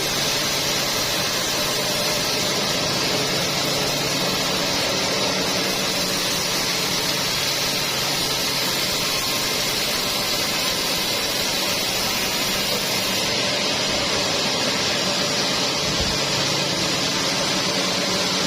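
Sawmill machinery running steadily: a constant low engine hum under a loud, even hiss, with no change in load.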